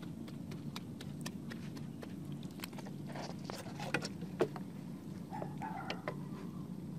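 Hands digging and scooping wet mud from a hole: scattered soft squelches, clicks and knocks, over a steady low hum.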